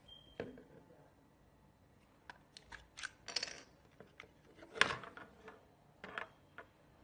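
Scattered small clicks and taps of something being handled, with a short high beep just after the start and the loudest click a little before the five-second mark.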